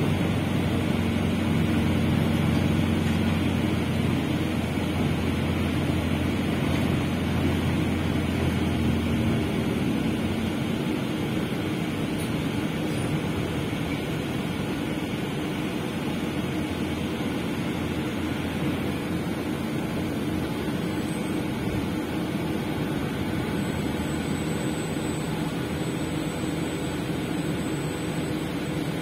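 Cabin noise inside a moving city bus: a steady engine hum with road and rolling noise. The low engine hum drops away about nine seconds in, and the ride goes on more quietly.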